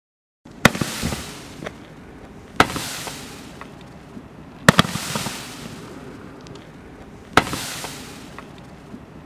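A Dominator 'Tough Guys' 200-gram consumer fireworks cake firing its mine shots: four sharp reports about two seconds apart, starting about half a second in. Each is followed by a fading tail with a few smaller pops.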